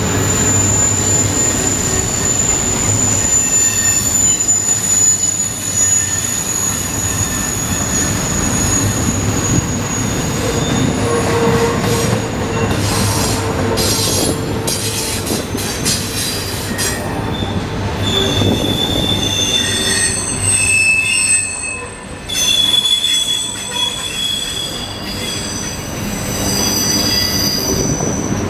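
Double-stack container train rolling past on a curve: a steady rumble of wheels and cars with high wheel squeal. One long squeal holds through the first twelve seconds or so, sharp rattling clicks come around the middle, and several shifting squeals of different pitches fill the last ten seconds.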